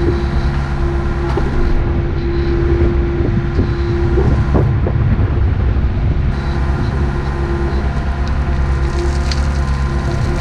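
Excavator engine running steadily, with scattered crunching and cracking of dirt and rock being worked, most of it around the middle.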